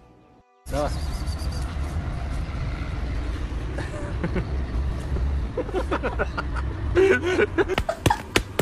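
Steady low rumble of street traffic, with voices and a few sharp knocks in the last couple of seconds.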